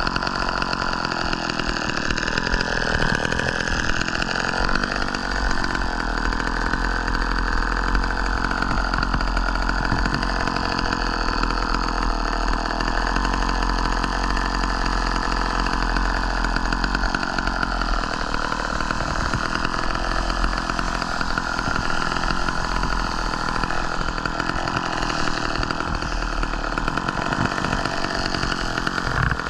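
Chainsaw running without a break, its pitch wandering a little as it works.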